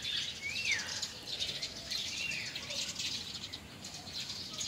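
Small birds chirping busily, with two short whistles that rise and fall, one about half a second in and another about two seconds in.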